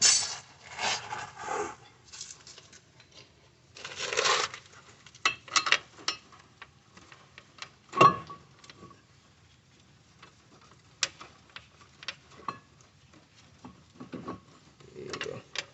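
Metal tools and car brake parts being handled: scattered clinks, scrapes and rattles, with one sharp metal clank about eight seconds in that rings briefly.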